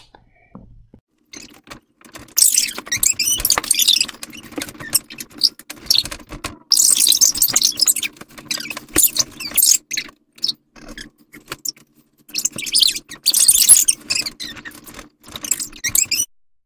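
Bursts of rustling with scattered clicks and squeaks as children move about on a bed and shift the bedding, over a low steady hum. It all cuts off suddenly near the end.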